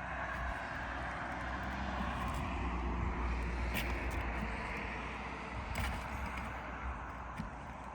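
A passing motor vehicle, its rushing engine and road noise swelling for a few seconds and then fading, over a steady low hum, with a few faint clicks.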